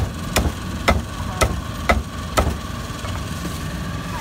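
A cleaver chopping meat on a chopping block: sharp strikes about two a second that stop a little past halfway, over a steady engine hum.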